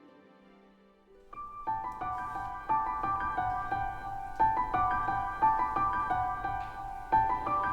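Background music: after a brief quiet lull, a gentle melody of struck, piano-like notes starts about a second in and carries on.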